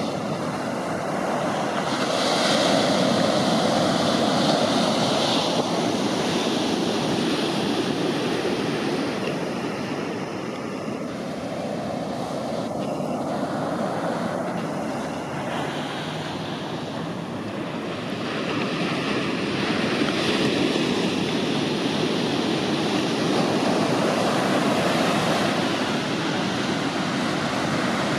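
Ocean surf: waves breaking and washing up a sandy beach in a continuous rushing wash. It swells louder a couple of seconds in, eases through the middle, and builds again with the next set of waves.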